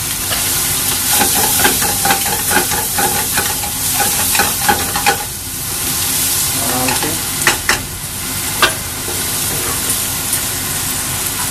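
Boiled eggs and green capsicum sizzling in hot oil in a pan while a wooden spatula stirs and scrapes them, with rapid clicking strokes over the first few seconds. After a short lull come a few sharp knocks of the spatula or pan.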